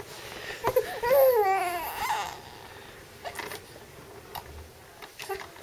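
Infant fussing: a whiny cry that rises and falls, about a second in and lasting about a second and a half, then a few faint clicks.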